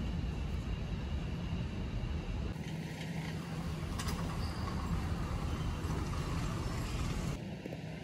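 Steady background noise of a large warehouse store: a low hum and rumble, with a single click about four seconds in.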